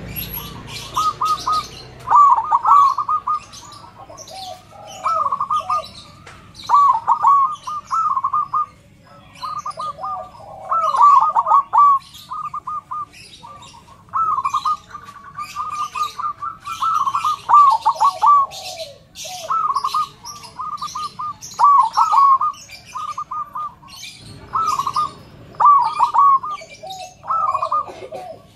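Zebra dove (perkutut) singing: short rippling cooing phrases repeated about once a second, in runs separated by brief pauses.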